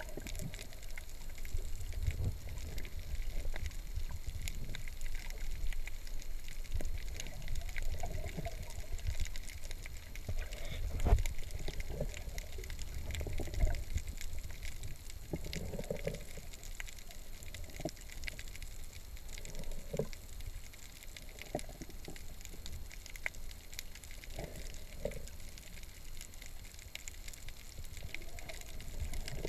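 Underwater sound heard through a GoPro's waterproof housing: a muffled, steady low rumble of moving water, with scattered faint clicks and knocks.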